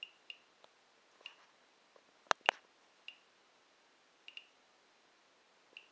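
RADOS RDS-30 dose rate meter giving short, high chirps at uneven intervals, about six in all, each chirp a detected radiation count. A little over two seconds in, two sharp clicks close together are the loudest sounds.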